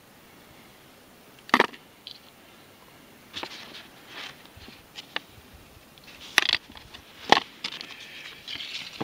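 Paper logbook sheet being handled: scattered rustles and crinkles with a few sharper clicks and knocks, the loudest about a second and a half in and again near the end.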